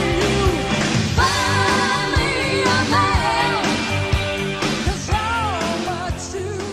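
Rock band playing with a woman singing held, wavering notes over electric guitar and drums; the music begins to fade out near the end.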